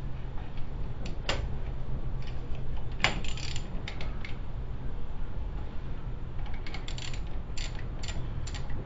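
Scattered metallic clicks and clinks of a ratchet and socket working on the 13 mm brake caliper bolts, in a few short clusters, over a steady low hum.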